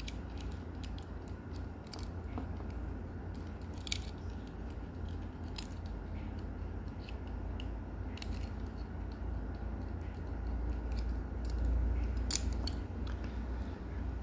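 Light, scattered clicks and scrapes of the small metal parts of a multitool's flint-wheel fire starter being handled and fitted back together, over a steady low hum.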